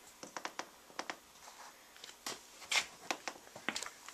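Scattered light clicks, taps and scuffs from rubber boots stepping on a concrete floor and from handling, with the loudest a little under three seconds in.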